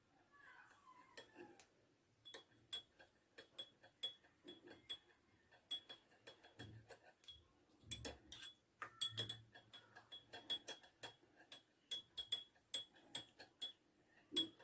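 A spoon stirring honey into a glass of syrup, clinking against the glass in faint, light ringing taps, two or three a second, in an irregular run.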